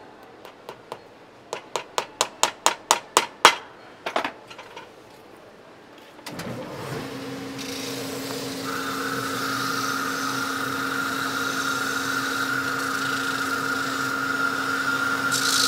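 A hammer strikes a shoe held on a metal last about a dozen times, the blows coming quicker and harder over four seconds. About six seconds in, the motor of a Mebus shoe repair machine starts and runs steadily with a hum and a whine.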